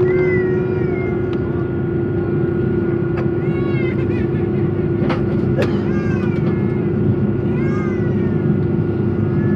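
Airbus A330-300 cabin noise: a steady engine drone with a held mid-pitched tone over a low rumble. Four short, high calls falling in pitch sound over it, and two sharp clicks come in the middle.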